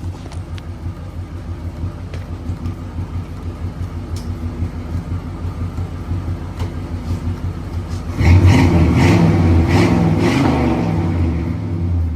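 Chevy's engine idling through exhaust pipes run out the back without tips, with an even pulsing sound. About eight seconds in it is revved hard for about four seconds, much louder, then eases back down.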